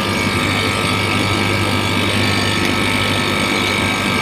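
Small three-phase air-conditioning compressor running under test, a steady hum with a constant higher whine.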